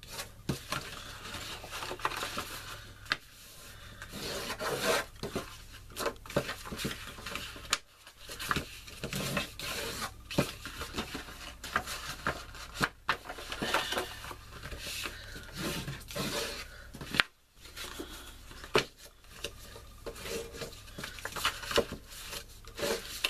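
Scored paper being folded and creased by hand: irregular rustling and rubbing as fingers press down the folds, with scattered sharp crinkles.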